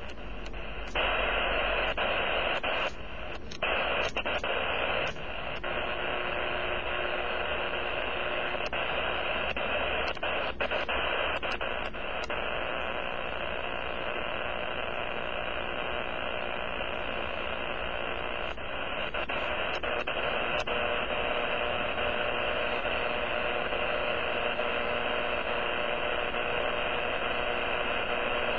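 Amateur radio receiver putting out steady harsh static: power line interference blanketing the band. In the first few seconds the noise briefly dips and jumps with a few clicks, then holds steady.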